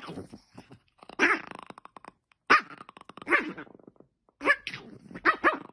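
Dog play-growling and barking at a hand poking the blanket, in short growly bursts about once a second.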